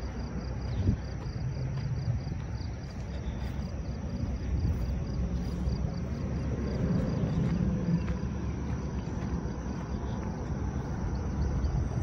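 Insects chirping in a quick, even, high-pitched rhythm that fades out about two-thirds of the way in, over a steady low rumble.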